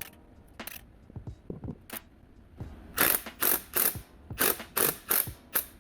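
Socket ratchet clicking on a rusted exhaust manifold nut: a few scattered clicks, then from about three seconds in a run of loud sharp clicks, about three a second, as the handle is swung back and forth.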